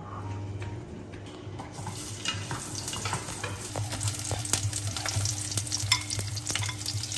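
Garlic cloves sizzling in hot oil in a non-stick frying pan while chopsticks stir them, clicking and scraping against the pan. The sizzle builds from about two seconds in as the oil heats.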